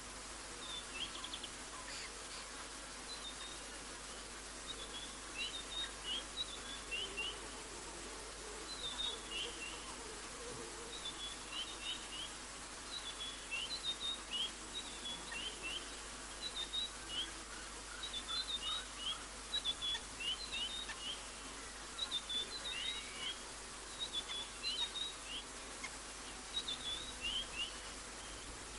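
A bird calling over and over in short groups of high, thin notes that each drop in pitch, over a steady background hiss.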